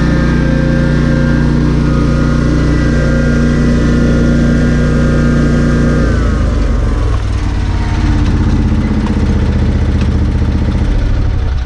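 Lawn mower engine running steadily at high throttle, then slowing to a lower speed about six seconds in.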